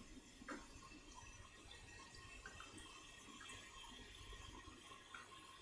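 Near silence, with a few faint light clicks of a spoon as soybean paste is scooped and stirred into a pot of water.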